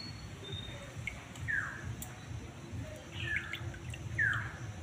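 A bird calling in the background: short chirps that fall in pitch, heard about a second and a half in, again around three seconds in and once more a little after four seconds, over a low steady background hum.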